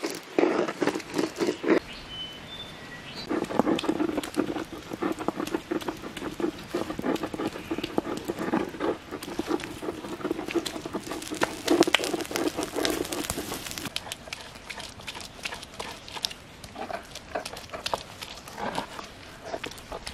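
Rustling and scraping of banana leaves and dry leaf litter being handled, thick with quick clicks. It is busiest in the first two seconds and again from about three seconds in until about fourteen seconds in, then grows quieter.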